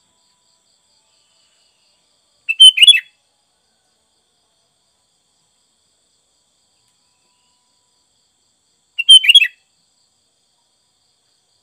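Sooty-headed bulbul (kutilang) singing two short phrases of several quick notes each, about six and a half seconds apart.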